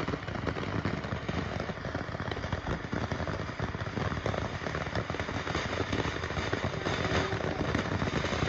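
Ground fountain firework spraying sparks: a steady hiss thick with fine crackles.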